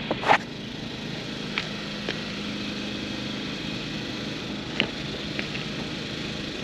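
Portable generators running with a steady drone, with a few light clicks and knocks of equipment being handled, the loudest just after the start.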